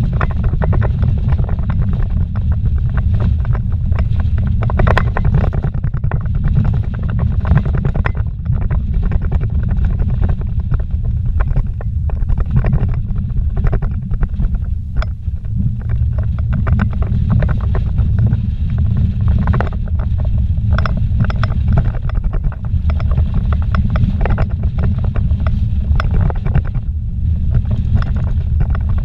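Vehicle driving fast on a dirt road, heard from inside the cabin: a steady, loud low rumble of engine and tyres on the rough track, with frequent short rattles and knocks.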